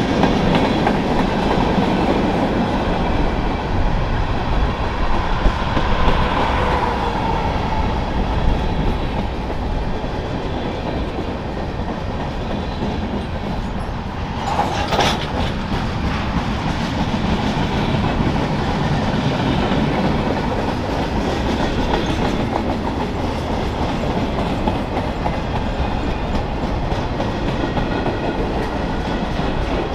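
Freight train passing close by: a steady, loud noise of wheels running on rail, with a brief sharper sound about halfway through.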